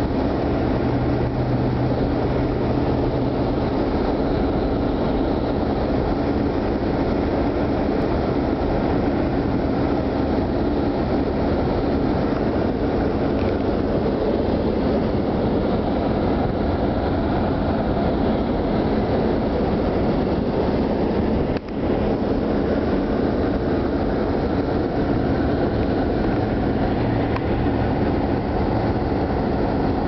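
Car driving at steady speed: constant engine hum mixed with road and wind noise. There is a brief dip in the sound about two-thirds of the way through.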